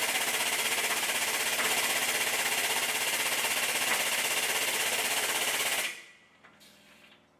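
Big workshop hydraulic press running, its pump making a fast, even rattle as the ram comes down to push an old bush out of a car's bottom suspension arm. The rattle cuts off about six seconds in, leaving near silence.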